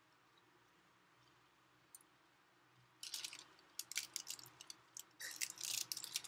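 Near silence, then from about three seconds in a rapid run of crackly rustling and sharp clicks: close handling noise, most likely the candy and its plastic wrapper being handled near the microphone.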